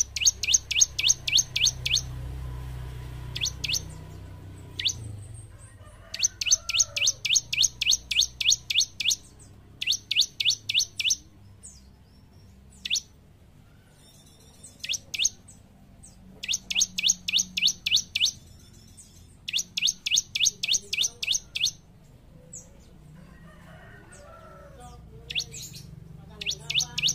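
Bar-winged prinia (ciblek) singing in rapid trills of sharp, high repeated notes, about eight a second, in bursts of one to three seconds, with single notes in between.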